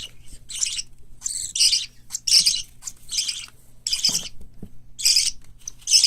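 Parakeet chicks calling: short, harsh, hissy calls repeated roughly once a second, sometimes two close together.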